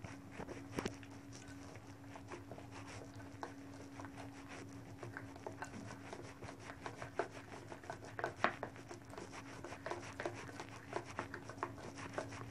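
A spoon stirring thick gram-flour (besan) dhokla batter in a bowl just after Eno has been added: quiet soft scraping with many light ticks against the bowl.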